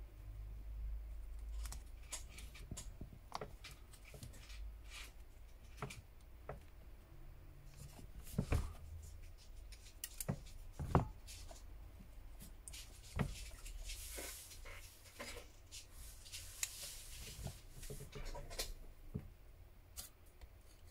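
Opening pick and thin metal pry tool clicking and scraping along the edge of an HTC U Play's glued back cover as it is pried away from the frame: scattered sharp clicks, a few louder snaps in the middle, and a stretch of scratchy scraping later on.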